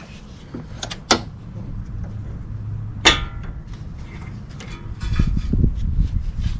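Metal parts clinking and knocking as a brake caliper is fitted back over the pads. A few light clicks come about a second in, a single sharp ringing clink about three seconds in, and dull knocks and bumps near the end.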